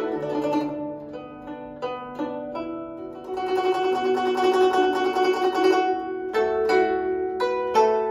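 Guzheng played solo: separate plucked notes for the first few seconds, then a dense, rapid passage from about three to six seconds in, then strong plucked notes again.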